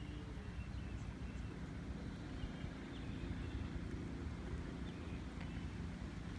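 Faint, steady low rumble with a droning hum of a distant engine, and a few faint high chirps.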